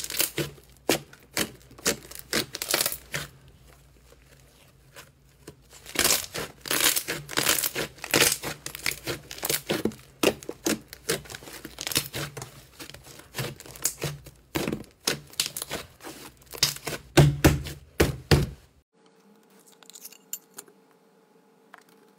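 Hands squeezing and kneading a thick mass of purple foam slime, making irregular crackling and popping in clusters of sharp clicks as trapped air bursts. The crackling stops suddenly near the end, leaving only a faint steady hum.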